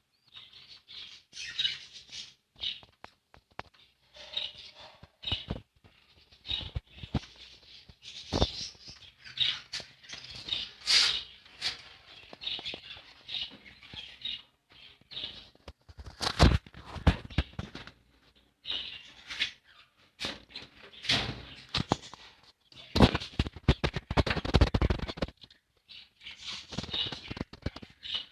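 Budgerigars chirping and chattering in short, busy calls, with a few louder bursts of wing flapping.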